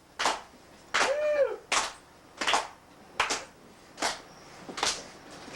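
A trumpet blown without playing a note: about seven short puffs and sputters of air, roughly one every three-quarters of a second. One of them, about a second in, carries a brief pitched squawk. The instrument will not sound.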